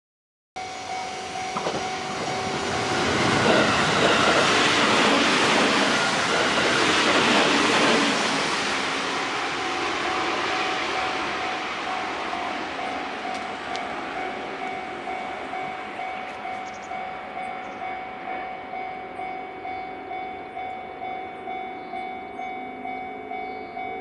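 JR Central 313 series 8000-subseries electric train running past close by, its wheel and running noise swelling to a peak for several seconds and then fading into the distance. Underneath, a level-crossing warning bell rings steadily at about two strokes a second.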